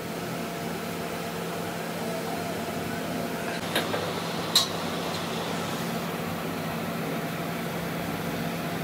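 A steady mechanical hum, with two sharp clicks a little under a second apart about four seconds in.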